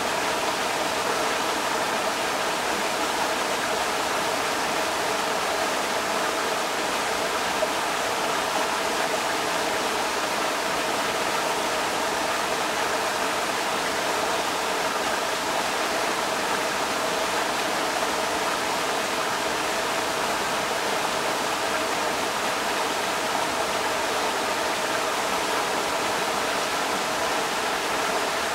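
Creek water rushing over rocks, a steady, unchanging rush.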